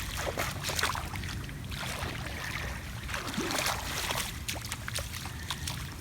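Floodwater splashing and trickling: many small, quick splashes over a steady low rumble.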